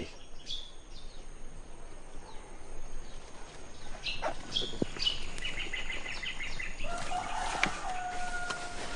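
Birds calling: several short falling chirps, then a quick repeated trill about halfway through, and a long steady note held for about two seconds near the end. A few light knocks and rustles sound in between.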